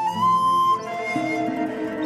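Background instrumental music led by a flute melody.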